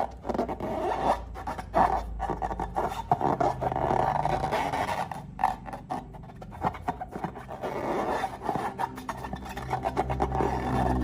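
Slime being stirred and worked by hand, giving dense crackling, rubbing and scraping sounds with many small sticky clicks.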